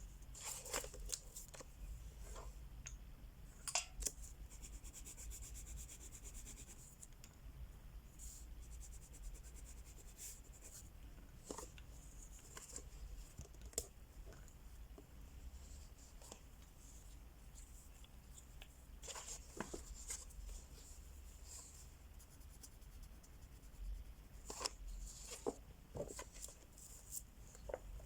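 Wax crayon scratching across a coloring-book page in clusters of short strokes, with small clicks and quieter stretches between.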